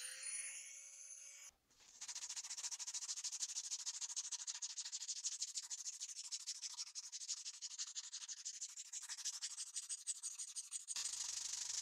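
A strip of sandpaper pulled rapidly back and forth around a wooden knife handle, shoeshine-style, making a fast, even rasping rub.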